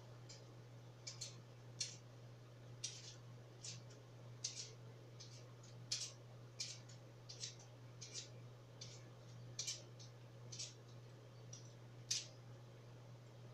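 Light, irregular clicks and taps of food preparation at a kitchen counter, roughly one or two a second, over a steady low hum.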